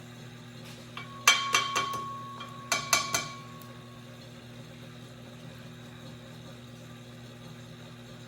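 Cork wedges being tapped into a glass lathe chuck to straighten a glass tube: four quick sharp taps, then three more about a second later, each leaving a short ringing tone. A steady low hum of the glass lathe runs underneath.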